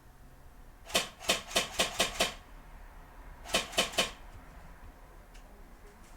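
Airsoft G36C electric rifle fired in quick semi-automatic shots: six sharp clicks in a row, then a pause and three more.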